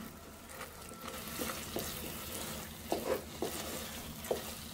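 Wooden spoon stirring and scraping flour through melted butter in a stainless steel pot, the roux frying with a light sizzle as the flour toasts. A few sharp knocks of the spoon against the pot come about three seconds in and near the end.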